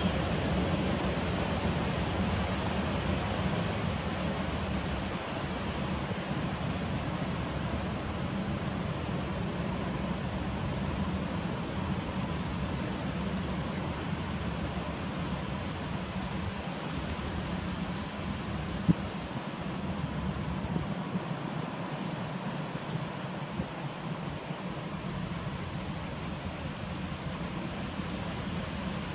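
Honeybees humming at the entrance of a nucleus hive: a steady buzzing drone over a soft hiss, with a single sharp click about two-thirds of the way through.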